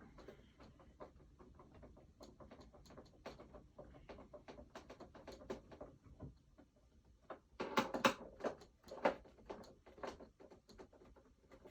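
A hand screwdriver turning long screws out of an animatronic figure's cage: a run of small irregular clicks and scrapes, growing louder and busier about eight seconds in.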